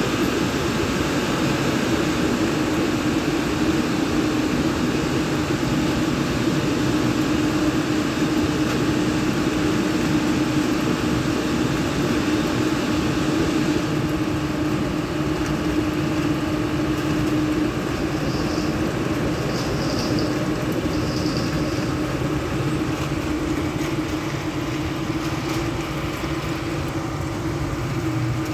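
Tunnel car wash drying blowers running: a loud, steady rush of air with a steady hum. The hiss thins out about halfway through.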